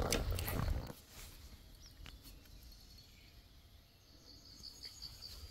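About a second of loud, low rustling and bumping close to the microphone, then faint outdoor background with scattered small ticks and a thin, high-pitched chirp that holds for about a second and a half near the end.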